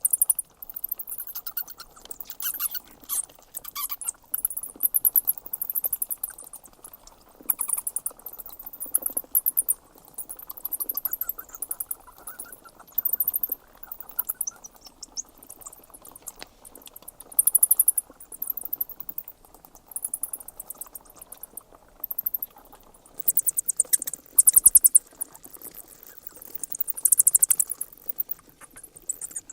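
Bats squeaking and chattering: bursts of rapid, very high-pitched clicks and squeaks, coming in groups every second or two over a faint steady background.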